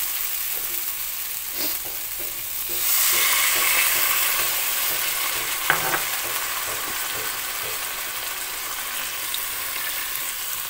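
Potatoes and masala sizzling in a hot non-stick pan while a wooden spatula stirs them. Water poured into the hot masala makes the sizzle louder about three seconds in, and there is a single knock near the middle.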